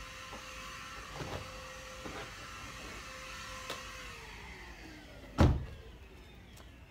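Handheld cordless vacuum cleaner running with a steady whine and a few light knocks as it works over the car's driver's seat, then switched off about four seconds in, its motor winding down in a falling whine. A car door is shut with a loud thump about five and a half seconds in.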